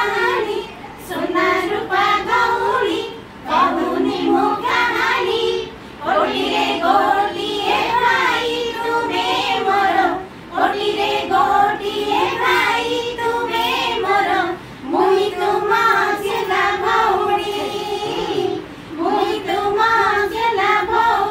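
A group of voices singing a Raksha Bandhan rakhi song in Odia, in phrases of a few seconds with short breaks between them.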